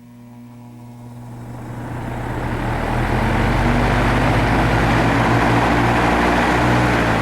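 WeatherWorks DB888 three-blade box fan starting up: a low motor hum under a rushing of air that grows louder as the blades come up to speed, leveling off about three seconds in and then running steadily.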